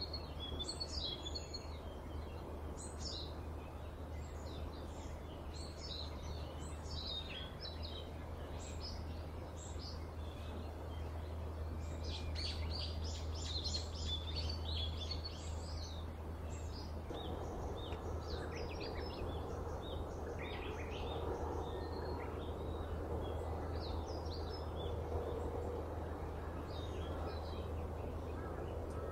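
Small birds chirping over and over, many short calls, above a steady low hum. A little past halfway a broader background noise comes in and the ambience gets somewhat louder.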